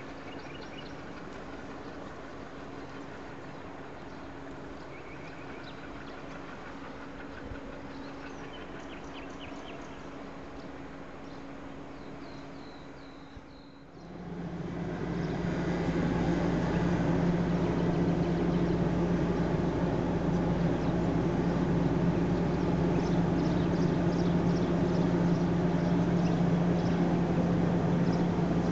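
A distant diesel locomotive running with a faint steady hum. About halfway through, a much louder sound takes over: an ADtranz DE2000 (OSE class 220) diesel-electric locomotive idling close by with a steady deep drone.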